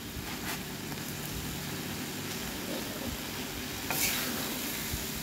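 Vegetables, beef and tofu sizzling steadily in a hot wok, with a short clatter about four seconds in.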